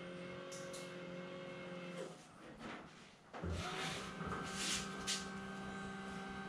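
A 12-volt electric linear actuator retracting a landing-gear leg, its motor whining steadily and slowly because it runs on low voltage through a long extension cable. The motor cuts out about two seconds in, then starts again with a short rising whine a second or so later and runs on, with a few faint clicks.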